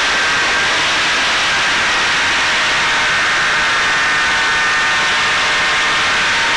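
Onboard sound of a Caipirinha 2 flying-wing FPV drone in flight: its motor's steady high whine over a loud rush of air noise.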